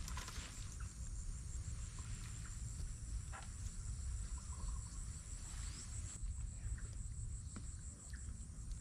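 Crickets chirping in a steady, evenly pulsed high trill, over a constant low rumble.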